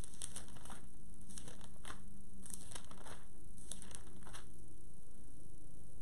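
Thin Bible pages rustling and crinkling as they are leafed through, in a quick run of crackles that stops about four and a half seconds in, over a steady low hum.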